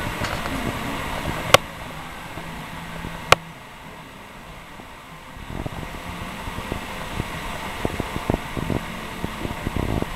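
Rustling handling noise and low rumble on a handheld camera's microphone, with two sharp clicks about a second and a half and three seconds in. After that it is quieter, with light irregular tapping.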